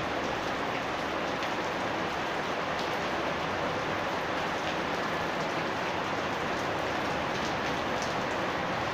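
Steady rain falling on a house yard, an even hiss with faint scattered drop ticks.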